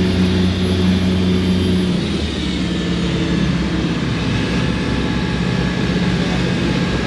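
Twin inboard diesel engines of a motor cruiser running at speed, a steady drone with water and hull noise, heard from inside the cabin. About two seconds in, the engine note shifts and gets slightly quieter.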